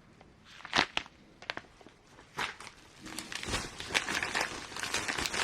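Plastic packaging being handled by hand. There are a few separate rustles and clicks at first, then steady crinkling from about three and a half seconds in as the wrapping is worked open.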